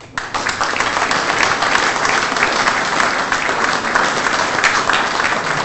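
Audience applauding: many people clapping together. It breaks out suddenly and holds steady.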